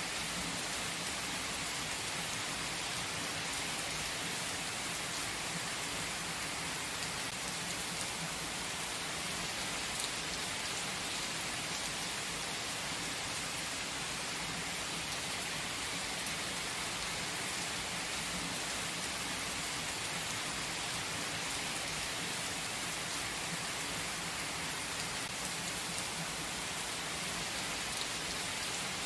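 Steady rain falling on forest trees: an even, unbroken hiss with a few sharper drop taps here and there.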